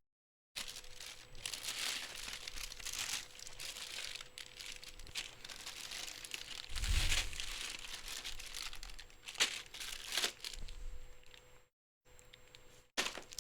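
Someone rummaging while searching for a cable: irregular crinkling and rustling with scattered knocks, and a heavier thump about seven seconds in.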